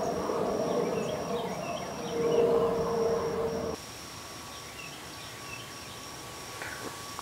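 Outdoor ambience: a steady hum with a low tone and faint scattered chirps, which cuts off abruptly about halfway through to a quieter hiss, with a high pulsing buzz throughout.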